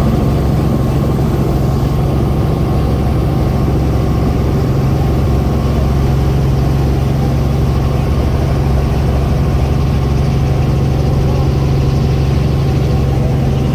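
Helicopter engine and rotor heard from inside the cabin: a loud, steady drone as it lifts off the helipad and climbs.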